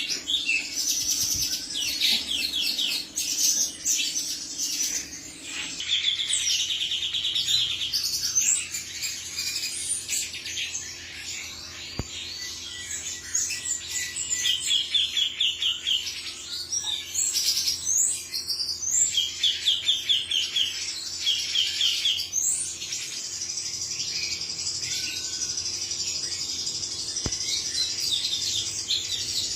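Male cucak cungkok bird singing: a dense run of high chirping notes, broken every few seconds by short, fast, rattling trills.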